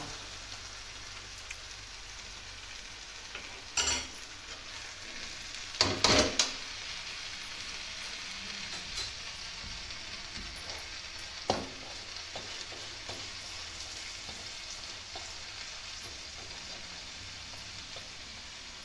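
Steady frying sizzle of a paratha cooking in desi ghee on a tawa beside cabbage sabzi in a kadhai. A steel spoon stirs and knocks against the pans, with sharp clanks about four seconds in, a few around six seconds, and one near twelve seconds.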